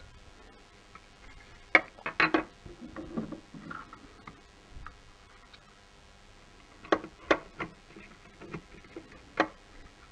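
Plastic and chrome steering-wheel trim parts and shift-paddle switch modules clicking and knocking as they are handled. A quick cluster of sharp clicks comes about two seconds in, with a soft rustle after it, and a few more single clicks follow between about seven and nine and a half seconds.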